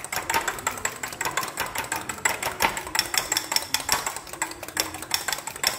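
Fork beating eggs and milk in a ceramic bowl: a fast, steady clatter of the metal fork tapping against the bowl's sides.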